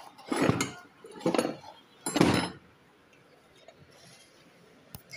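Metal engine parts clinking and rattling against an aluminium parts tray as they are handled, in three short bursts about a second apart, then a single sharp click near the end.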